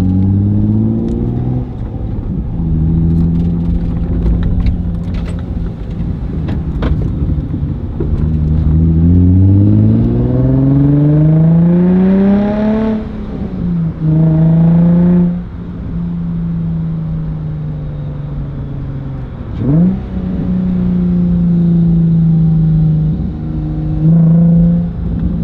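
Nissan 350Z's V6 through a Tomei titanium cat-back exhaust, heard from inside the car with the windows down: it pulls up through the revs in long rising sweeps, drops in pitch at each upshift, and settles into a steady drone while cruising. A quick blip of revs comes about twenty seconds in.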